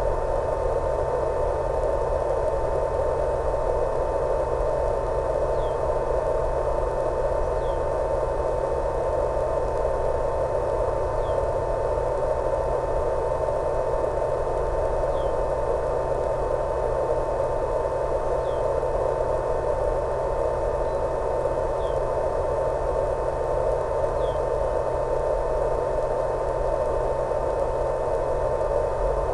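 Steady radio static with a constant tone, from the audio channel of an analog 1.3 GHz FPV video link, with faint short chirps about every two seconds.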